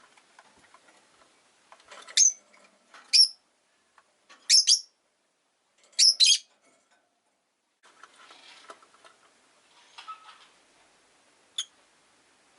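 Rosy-faced lovebird chirping: four loud, sharp, high chirps between about two and six seconds in, then a quieter stretch and one more short chirp near the end.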